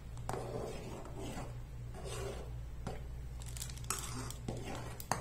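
A metal spoon stirring and scraping in a steel pot of milky vermicelli, in repeated strokes with a few sharp clinks against the pan.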